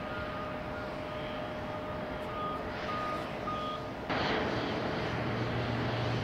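Reversing alarm of an airport ground vehicle, beeping at an even pace of about two beeps a second over a steady background rush. About four seconds in, a louder steady rush with a low hum sets in suddenly.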